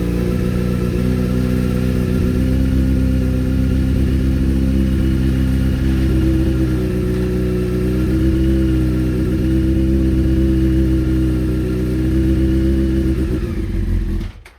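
Honda CBR600F inline-four engine running steadily on its first start after revival, the pitch wavering a little in the middle; it cuts off suddenly near the end. The owner blames the carburettors for how it runs and revs, and expects to take them off.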